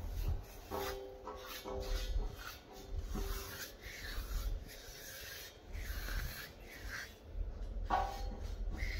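Paintbrush stroking wet red paint along a steel gate girder: repeated rasping brush strokes, coming about twice a second in the second half.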